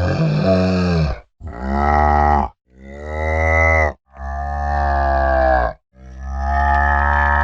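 A cow mooing: five long moos in a row, each a second or more long, with short breaks between them.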